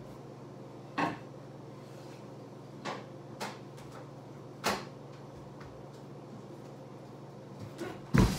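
A few scattered knocks and clicks in a room, about five over the stretch, with the loudest bang just before the end, over a steady low hum.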